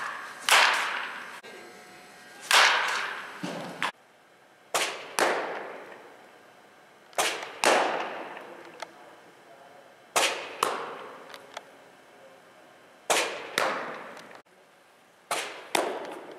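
Baseball practice impacts: sharp cracks and pops of bat on ball and baseballs smacking into a catcher's mitt, most in pairs about half a second apart and repeating every two to three seconds. Each one echoes for about a second in the large indoor hall.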